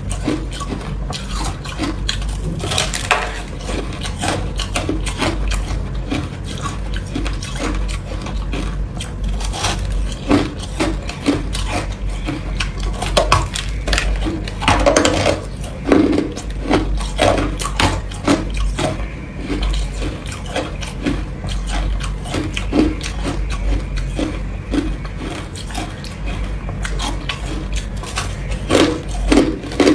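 Ice being crunched and chewed in the mouth close to the microphone: dense, irregular cracking and crunching, several bites a second, with louder bursts of crunching now and then.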